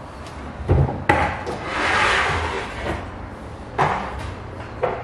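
Wooden kitchen cabinet doors being opened and shut: about four knocks and thuds, with a swell of rushing noise in the middle.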